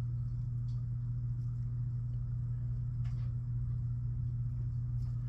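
A steady low hum with a faint rumble under it, and a few faint light ticks about a second in, near the middle and near the end.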